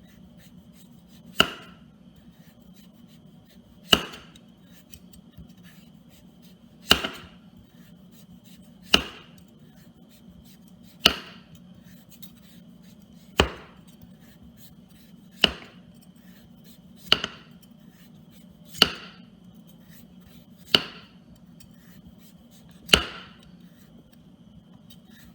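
Kitchen knife knocking on a cutting board as strips of butternut squash peel are sliced off, one sharp knock every two seconds or so, about eleven in all.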